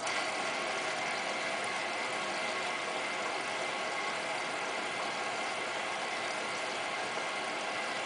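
Hotpoint Ultima WT960 washing machine taking in water on its ninth fill: a steady hiss of water running into the machine through its inlet valve.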